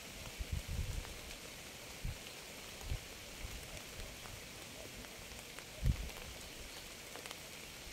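Steady rain falling, an even hiss, with a few short, soft low thuds; the loudest thud comes about six seconds in.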